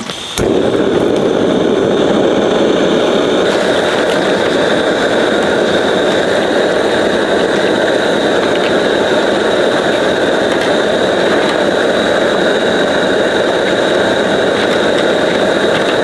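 A steady engine-like running noise that starts abruptly about half a second in and holds level, with a faint high whine on top.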